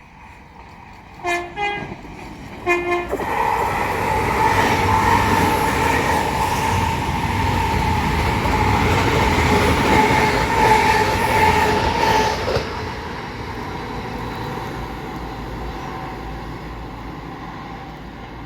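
A train sounds its horn in a few short blasts as it approaches, then passes close by at speed, its noise steady and loud for about ten seconds with a held whine, before dropping away and fading.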